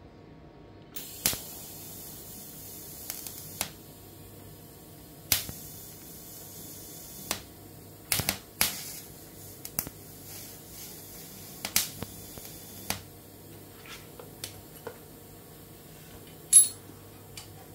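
About a dozen sharp, irregular clicks and taps of tools and metal parts being handled at a workbench, over a faint steady hum. The loudest tap comes near the end.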